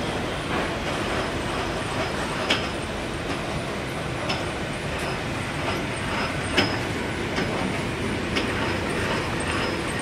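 Veneer peeling line running: the rotary peeling lathe and its belt-and-roller conveyor keep up a steady mechanical din while peeling 0.3 mm face and back veneer, with a sharp click about every two seconds.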